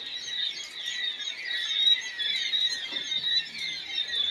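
A crowd of young quail chirping continuously, many short high peeps overlapping.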